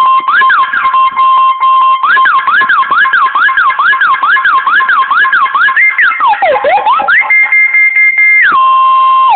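Electronic multi-tone siren of the kind used by car alarms, running through its patterns: a steady high tone, then a fast up-and-down warble, a swoop down and back up, a held higher tone about seven seconds in, and a drop back to the first tone near the end. Loud.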